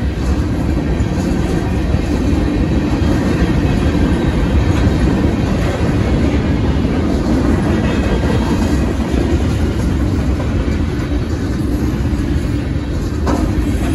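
Freight cars, including boxcars, a covered hopper and lumber-loaded flatcars, rolling past a grade crossing: a steady rumble of steel wheels on the rails, with a single clank near the end.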